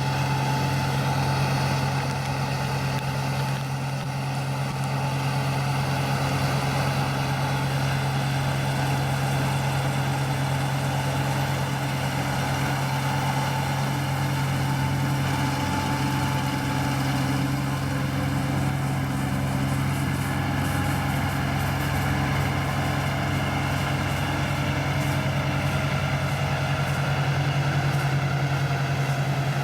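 ISEKI 325 rice harvester's engine running steadily under load while harvesting, a constant drone with a faint high whine above it.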